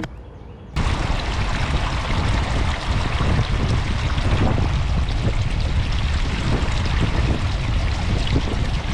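Rain-swollen creek water rushing, a loud steady rush that cuts in about a second in and stops abruptly near the end.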